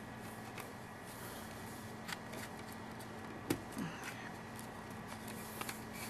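Faint scattered clicks and light rubbing as plastic drinking-straw tubing is handled and pushed along a painted wooden dowel, over a steady low hiss. The loudest click comes a little past halfway.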